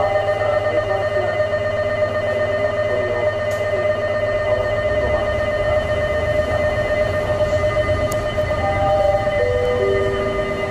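A loud electronic alarm-like signal tone held steady, with a few stepped notes at its start and again near the end, over a low steady hum.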